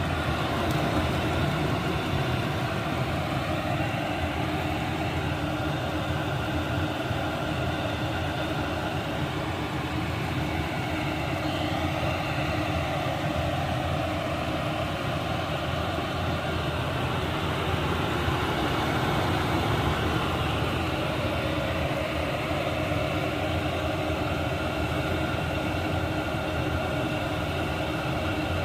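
Chinese-made diesel parking heater running steadily: a low rumble with a steady whine in several tones from its blower and combustion fan.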